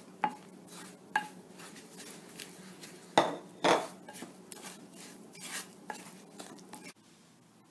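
Wooden spoon stirring thick yogurt into roasted semolina in a baking dish, with soft scrapes and irregular knocks of the spoon against the dish, the loudest a few seconds in. The stirring stops about seven seconds in.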